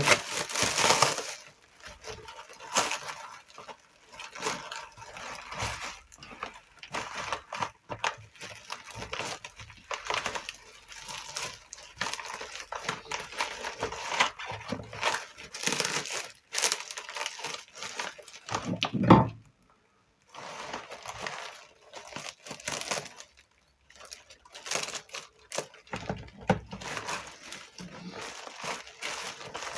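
Corrugated paper and cardboard packing material being handled, with rustling, crinkling and small scrapes and taps throughout. There is one louder knock about two-thirds of the way through.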